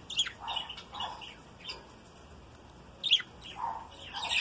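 Budgerigars chirping in short, scattered calls, with a quiet spell in the middle and busier chatter near the end.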